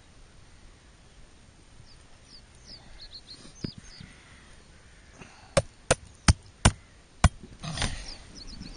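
Kizlyar Kondor-3 knife being batoned through a zander's bones: five sharp knocks a little past halfway, each under half a second apart, then a brief scraping sound.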